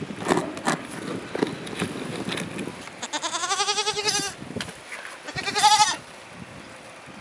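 A Tokara goat bleating twice at close range: a longer quavering bleat, then a shorter, louder one. A few knocks and rustles come before the bleats.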